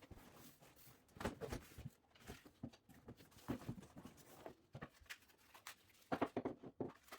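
Faint, intermittent rustling, clicks and light knocks of a bike's shipping box being opened and its parts and packaging lifted out onto a table.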